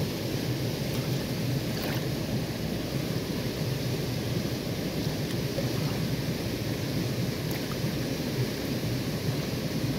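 Shallow water rushing steadily over sand and pebbles, a low, even wash with a few faint ticks.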